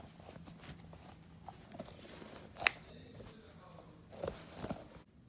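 Faint handling noises from a rubber shark hand puppet being moved around on a fabric blanket: soft rustles and scrapes, with one sharp click a little over two and a half seconds in.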